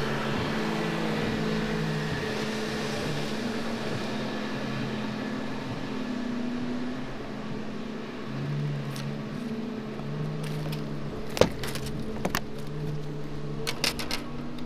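Electric bow-mounted trolling motor on a bass boat humming steadily, its pitch shifting from time to time. A few sharp knocks and clicks come in the last few seconds as a bass is brought to the boat.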